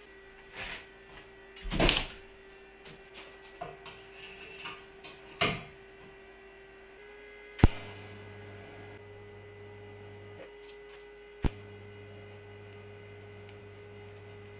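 A few knocks and clatters of metal being handled, then a TIG welding arc on steel square tubing strikes with a sharp click and runs as a steady hum. The arc stops for about a second and strikes again with another click.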